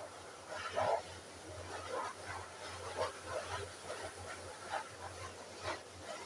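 Short animal calls repeating irregularly, about two a second, over a steady low hum.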